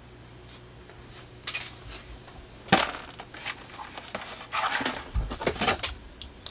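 Small red plastic model kit parts on their sprues clicking and rattling as they are handled and set down on a cutting mat: a sharp click about halfway through and a longer run of rattling clicks near the end.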